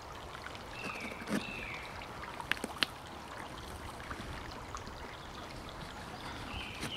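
Knife blade cutting and scraping through gaffer tape on a cardboard box over a steady hiss, with two sharp clicks about two and a half seconds in.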